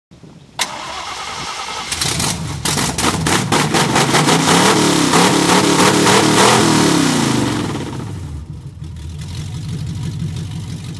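An engine starting and being revved: it comes in suddenly about half a second in, the revs climb and fall over several seconds, then it settles back to a steadier idle.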